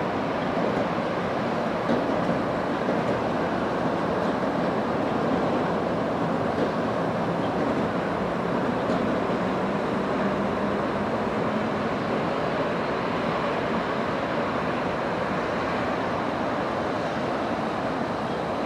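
An Osaka Monorail train passing along its elevated straddle beam on rubber tyres, a low running rumble with a faint motor hum that shows mainly in the middle, set against a steady rushing background noise.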